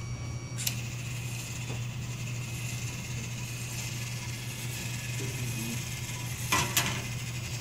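VEX robotics conveyor with a plastic tank-tread belt running on its motors: a steady hum with a whirring hiss that starts with a click just under a second in. Two sharp clacks about a third of a second apart near the end.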